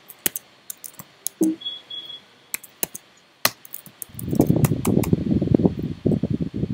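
Typing on a computer keyboard: single key clicks spaced out at first, then a dense run of fast typing from about four seconds in.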